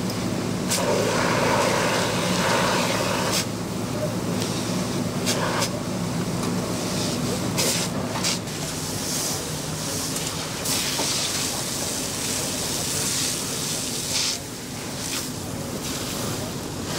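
Fire engine pump running with a steady low hum, under the hiss of a hose stream spraying onto a burning boat. A few sharp pops come through it.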